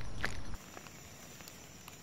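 Rustling footsteps in dry fallen leaves along with handling noise and a couple of clicks. These cut off abruptly about half a second in, leaving quiet outdoor background with a thin steady high tone.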